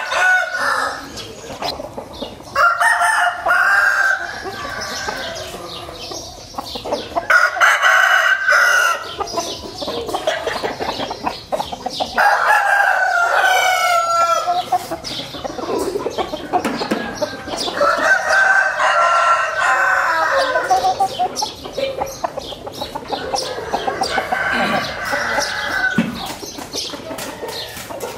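Gà nòi gamecock roosters crowing one after another, a crow of a second or two about every five seconds, with clucking between the crows.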